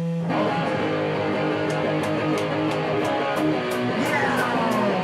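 Hardcore punk band playing live: electric guitar and bass chords over drums, with sharp cymbal strokes about three a second.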